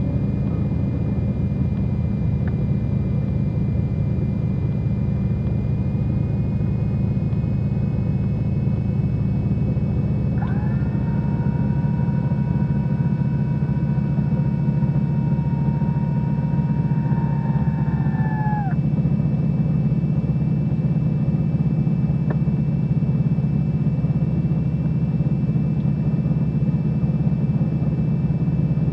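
Cessna 310's twin piston engines running steadily at low taxi power, an even drone heard inside the cabin. From about ten seconds in, a separate steady tone sounds for about eight seconds and sags in pitch as it stops.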